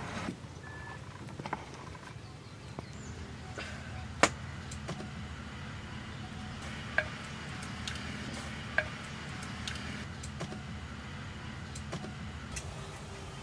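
Scattered knocks and clinks of clay cooking pots, a clay lid and a wooden spoon being handled, the sharpest one about four seconds in, over a steady low background hum.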